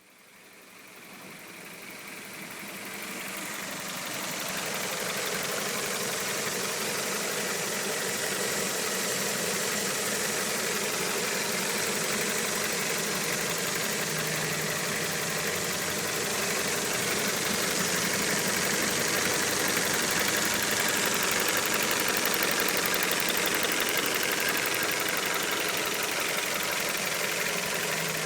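Toyota 4A-GE 1.6-litre twin-cam four-cylinder engine idling steadily, warmed up and run in. It fades in over the first few seconds.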